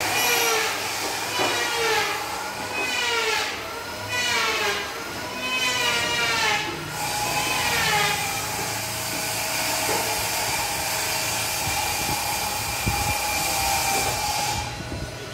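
Livestock bleating, about six calls roughly a second and a half apart. From about seven seconds in, a steady machine hum runs under it.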